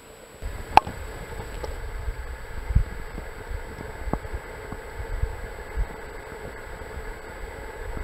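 Muffled underwater stream noise: a low rumble with irregular soft thumps, and one sharp click just under a second in.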